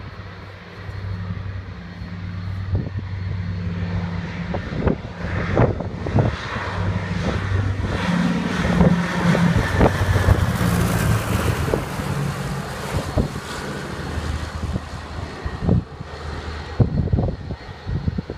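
Twin radial piston engines of a PBY Catalina flying boat droning as it flies low overhead, growing louder to a peak about halfway through and then fading. Wind buffets the microphone throughout.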